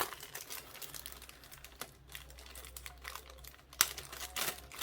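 Plastic bags and packaging crinkling and rustling as they are handled, with one sharper, louder click about four seconds in.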